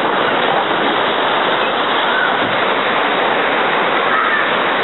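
Ocean surf breaking and washing up the shallows: a steady, loud rush of water.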